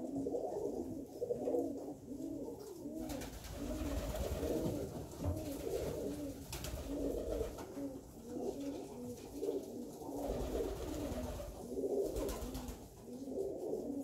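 A loft full of Alföldi-Körösi tumbler pigeons cooing continuously in many overlapping voices. Stretches of noise join in about three seconds in and again near the end.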